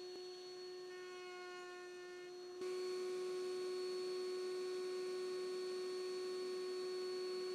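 Table-mounted router running free, a steady motor whine with no cutting noise heard. It is faint and gets a little louder about two and a half seconds in.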